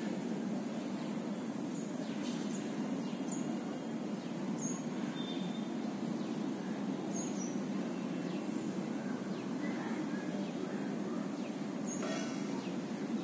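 Outdoor ambience: a steady low background rumble with a faint steady high whine, and a few short, high bird chirps scattered through.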